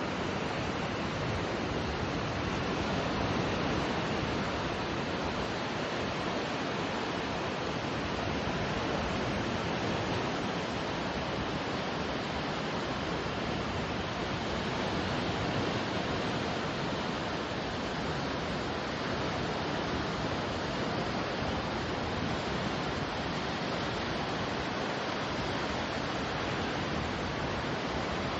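Ocean waves washing on a shoreline: a steady, even hiss of surf with slight swells.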